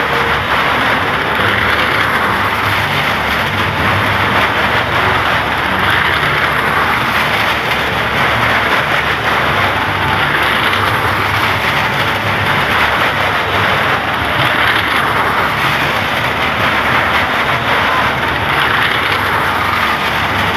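Car engine running hard at steady high revs as the car circles the wall of a well of death, with tyre noise on the wooden planks; a loud, continuous din with no breaks.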